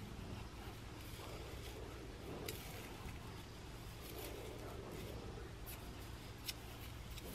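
Fingernails scratching through short, tightly coiled hair on a dry, dandruff-flaking scalp: a faint, uneven rasping with a few sharp crackles, over a low steady hum.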